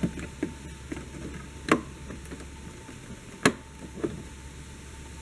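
Irregular hard plastic clicks and knocks as an aftermarket fog light is handled and pushed into its bracket in a VW Golf Mk6's front bumper opening. There are about half a dozen of them; two sharp snaps, a third of the way in and just past halfway, are the loudest.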